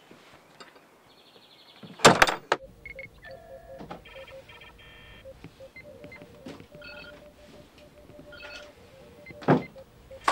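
A loud thump about two seconds in, then a run of short electronic beeps in quick patterns, with another thump near the end.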